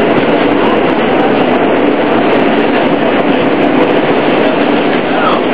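Steady running noise inside an R160A-2 New York City subway car under way, wheels rolling on the rails.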